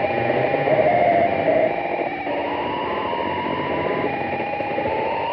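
Korg Radias synthesizer playing a dark, weird ambient patch: a dense, noise-like texture with a few held tones that step upward in pitch partway through. It dips slightly in level a little under two seconds in.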